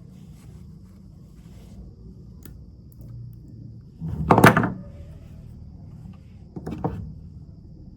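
Two short knocks from handling a cutter and Cat 6 cable on a work surface while the cable's plastic centre spline is cut away. The louder knock comes about four seconds in and a smaller one near the end.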